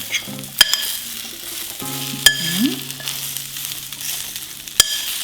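A spoon stirring food in a hot glass baking dish, with three sharp ringing clinks against the glass over a soft steady sizzle. A faint low held tune sounds underneath.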